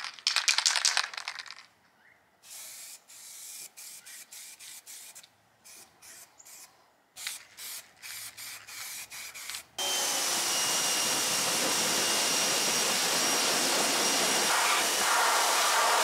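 Aerosol spray-paint can shaken, then sprayed in a series of short hissing bursts. About ten seconds in, a pressure washer starts and runs steadily with a faint high whine as its jet hits the painted frame, washing off the masking soap.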